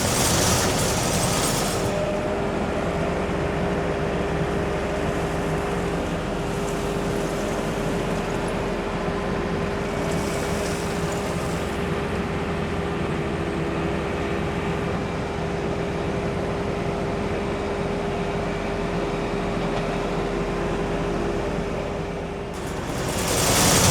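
Heavy-equipment diesel engine running steadily, with a steady whine over the engine sound.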